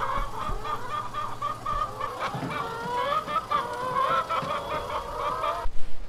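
A flock of laying hens clucking and calling in a henhouse, many voices overlapping. The calls cut off abruptly near the end.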